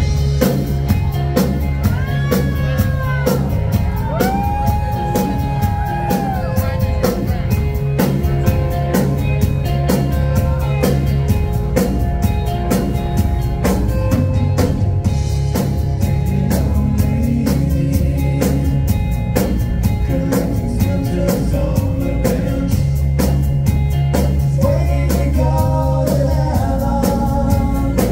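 Rock band playing live: electric guitars over a low bass line and a steady drum kit beat.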